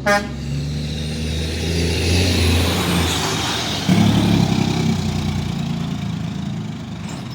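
Mack dump truck's diesel engine pulling past uphill, with a short sharp burst right at the start. The engine gets suddenly louder about four seconds in, then fades away.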